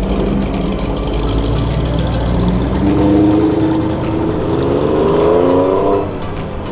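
Car engine accelerating, its note climbing steadily in pitch through the revs, then dropping away abruptly near the end.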